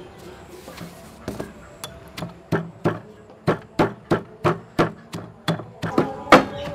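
Pestle pounding chili, garlic and sugar in a stone mortar: a regular run of strikes, about three a second, starting about a second in and getting louder.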